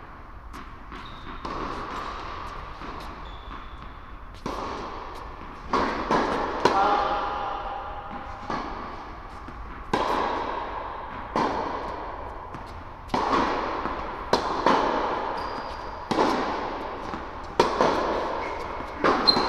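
Tennis ball struck by rackets and bouncing on a hard indoor court in a rally, a sharp hit about every second and a half from about four seconds in, each echoing in the large hall.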